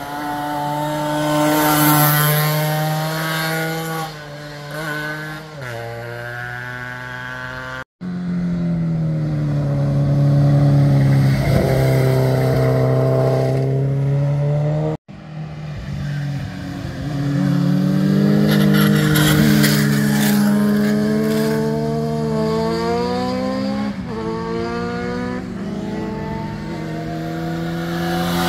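Motorcycle engines running through a hairpin bend, one bike after another, their revs rising and falling as the riders roll off, change gear and accelerate out of the curve. Two abrupt cuts, about eight and fifteen seconds in, join three separate passes.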